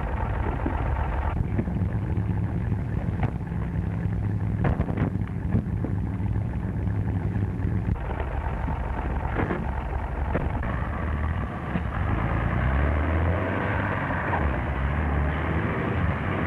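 Motor vehicle engine running, with several sharp knocks and thumps over the first ten seconds. About twelve seconds in, the engine grows louder and fuller as a car drives.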